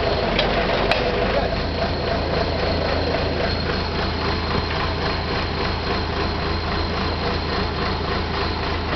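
Auger drill rig's engine running steadily, a constant low hum.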